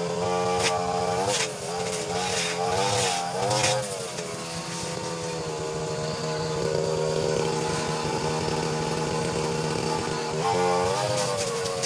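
Brushcutter engine running fast, its pitch dipping and rising several times in the first few seconds and again near the end, holding steady in between, with a few sharp clicks early on.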